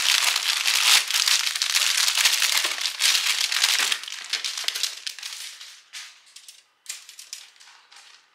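Clear plastic polybag crinkling loudly as a plastic model-kit runner is pulled out of it. After about four seconds the crinkling thins to scattered short rustles and light clicks, fading toward the end.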